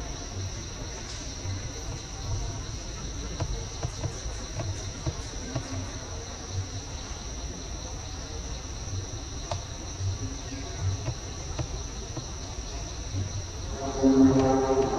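Steady high-pitched drone of forest insects, with a low rumble underneath. About a second before the end, a louder pitched sound with several overtones comes in.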